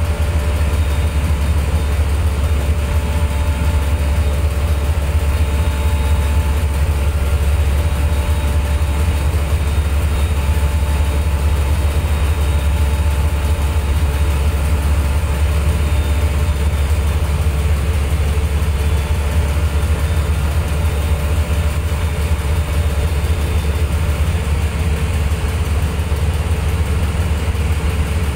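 Small wooden motorboat's engine running steadily with a low, even drone.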